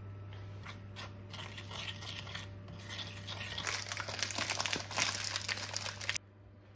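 Baking paper crinkling and rustling as hands fold it over a raw chicken breast in a baking tin, growing louder over the last few seconds and cutting off suddenly near the end.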